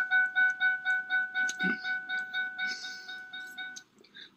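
Car's electronic warning chime beeping rapidly, about four or five beeps a second in one steady tone, fading and stopping near the end.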